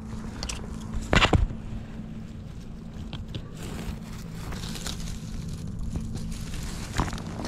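Footsteps crunching and rustling through dry leaf litter and twigs, with a loud crunch about a second in and another just before the end.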